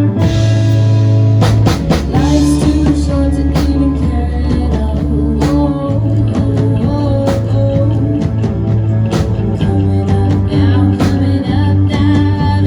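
Rock band music with guitar, bass and drum kit playing steadily, with sung vocals.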